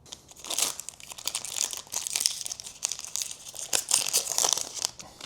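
Foil trading-card pack wrapper crinkling and tearing as it is ripped open and handled, a dense run of crackles that swells about half a second in and again near the end.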